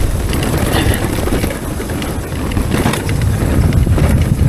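Transition Sentinel V3 mountain bike descending a dirt trail at speed: wind buffeting the microphone over the rumble of tyres on dirt and roots, with short rattles and knocks from the bike.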